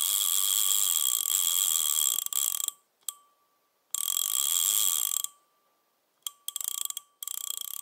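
A rapid mechanical rattle with a steady metallic ringing tone, in bursts: a long one, a single struck ring that dies away, a second burst, two quick clicks, and it starts up again near the end.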